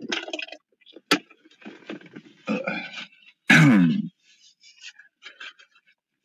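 A man's wordless vocal noises close to the microphone, the loudest a low sound falling in pitch about three and a half seconds in, with a sharp click about a second in.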